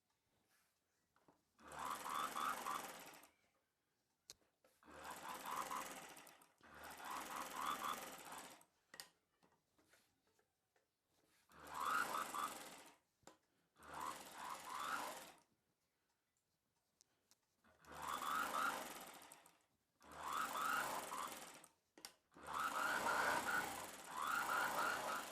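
Sewing machine stitching in short runs of a second or two, about nine times, stopping between runs while the cloth is turned and adjusted around the curve of a blouse seam.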